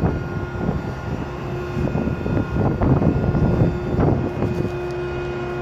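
Rescue boat davit's motor running with a steady hum and whine while it slews the suspended rescue boat, over irregular low rumbling.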